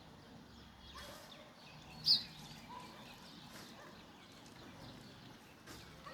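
Sparrows chirping: faint scattered chirps, with one short, loud chirp about two seconds in.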